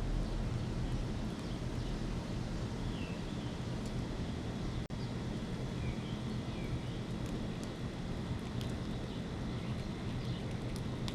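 Outdoor ambience: a steady low rumble with faint, short bird chirps scattered through and a few light clicks. The sound briefly drops out for an instant near the middle.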